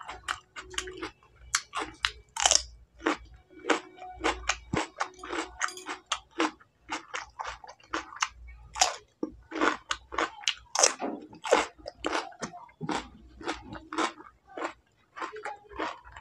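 A person biting and chewing raw cucumber pieces, a dense run of sharp wet crunches coming irregularly, a few each second.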